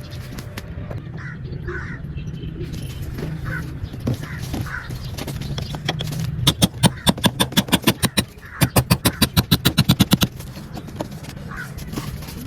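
Crows cawing in short, repeated calls. About six and a half seconds in, a much louder rapid clatter, about nine sharp beats a second, comes in two runs of a second or two each.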